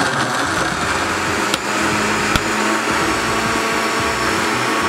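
Countertop blender motor running steadily at speed, blending a milkshake of ice cream, milk and graham crackers until smooth.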